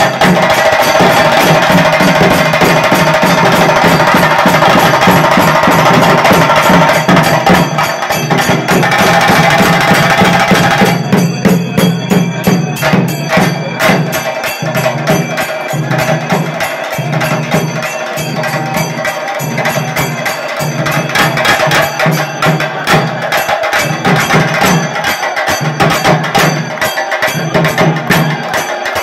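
Loud live drumming: a fast, sharp percussion rhythm over a steady beat. It is fuller and denser for about the first ten seconds, then thins to crisp rapid strokes.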